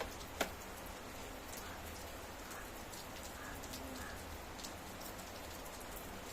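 Steady rain falling, with scattered individual drops ticking on a surface and one sharper drip about half a second in.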